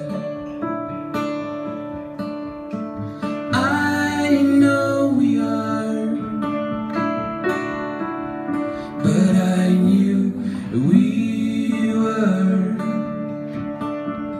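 Acoustic guitar and a Nord Stage keyboard set to piano, playing a slow song together live.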